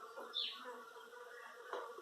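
Faint bird chirps, one short falling chirp about half a second in, with a light click near the end.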